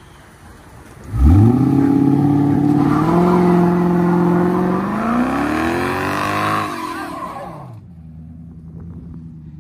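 Lincoln sedan doing a burnout. About a second in, the engine revs up sharply and is held high while the rear tyres spin and squeal. Its pitch dips and climbs again before it eases off to idle for the last couple of seconds.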